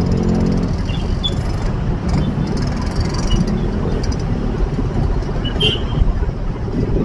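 Dense city traffic: motorcycle and car engines running in slow, congested traffic, with a city bus passing close alongside. A few short high-pitched squeaks sound over the steady rumble.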